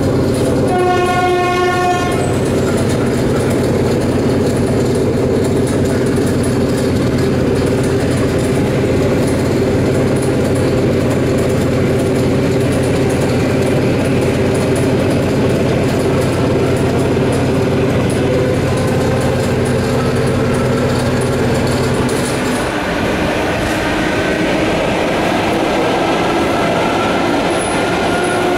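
Inside an ET2M electric multiple unit: a train horn sounds once, for about a second and a half, near the start, over a steady electrical hum. About 22 seconds in, the low hum drops away and a traction-motor whine slowly rises in pitch.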